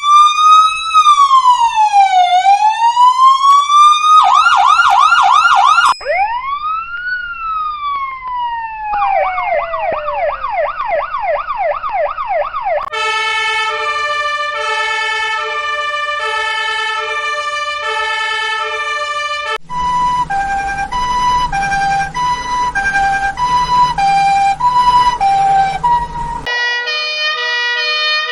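A series of electronic emergency-vehicle sirens played one after another: a slow rising and falling wail, a fast yelp, another slow rise and fall, then a rapid falling yelp. Next come two two-tone sirens switching between high and low notes, the second over a low rumble, and near the end a steady chord of several tones.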